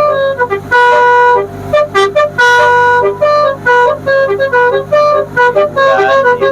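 Telolet basuri musical horn on a tourist boat playing a quick tune of short and held notes, with a steady low hum underneath.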